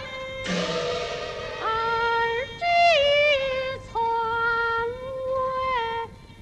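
Peking opera music: a female voice sings high, held notes that slide and waver between pitches, over the opera's accompaniment. A crash of percussion comes about half a second in and fades over about a second.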